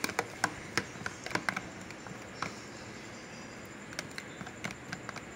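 Spoon stirring yogurt raita in a plastic container, clicking and tapping against its sides: a quick run of clicks in the first second and a half, then scattered taps.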